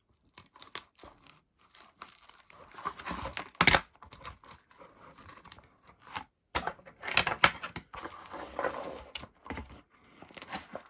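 Hands working on a small model at a workbench: irregular rustling, crinkling and light clicks as parts and wires are handled, with one sharp knock about three and a half seconds in.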